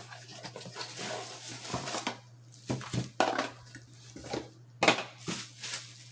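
Unpacking a rifle scope base: a cardboard box is pulled apart and a bubble-wrapped metal base is taken out and handled, giving rustling of cardboard and plastic with irregular light knocks and clatter on the table. The sharpest knock comes a little before five seconds in.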